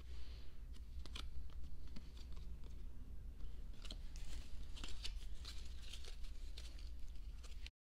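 Album packaging being handled: plastic and paper crinkling and rustling with many small clicks and taps, over a low steady hum. The sound cuts off suddenly near the end.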